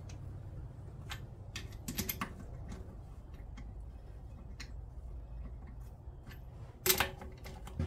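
Scattered light clicks and clinks of small metal tools and engine parts being handled on a workbench, with a louder clatter near the end, over a steady low hum.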